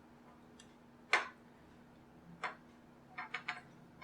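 Sparse light clicks and taps of a small hand tool working at the speaker's glued plastic internals: a sharp click about a second in, another near the middle, and a quick run of three near the end.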